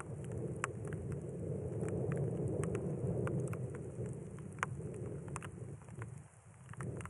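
Desert rainstorm: gusty wind buffeting the microphone, with scattered raindrops ticking close by at irregular intervals. The wind eases briefly near the end.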